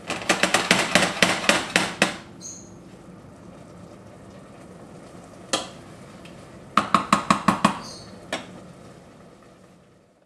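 Spoon stirring sautéing mushrooms in a stainless steel pot: two runs of quick knocks against the pot, about five a second, with a soft sizzle between them as the mushrooms' liquid cooks off over high heat.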